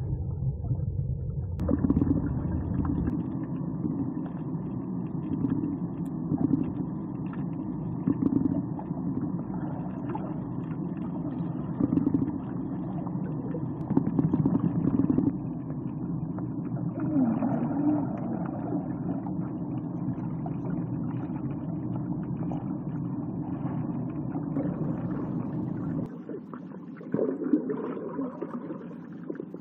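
Muffled underwater rumble and water movement picked up by a camera in a waterproof housing, swelling every couple of seconds as the swimmer moves. It drops quieter near the end.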